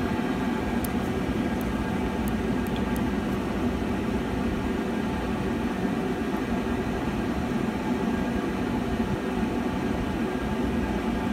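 Pentair MasterTemp 400 pool heater running with a steady rumble after being switched on, as a test of its newly replaced stack flue sensor. A few faint clicks come in the first few seconds.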